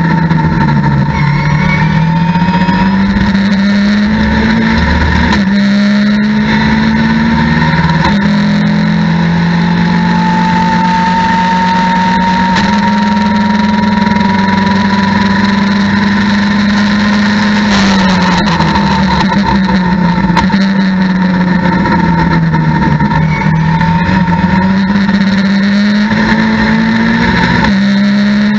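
Mitjet race car engine heard from inside the cockpit, pulling hard at full throttle with quick upshifts and then holding high revs along a straight. About two thirds of the way in the revs fall through downshifts under braking for a slow corner. It then pulls hard again, with an upshift near the end. A high whine rises and falls with the speed over the engine note.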